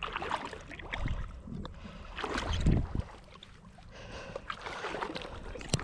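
Water sloshing and splashing in irregular bursts as someone moves through shallow lake water, with a sharp click near the end.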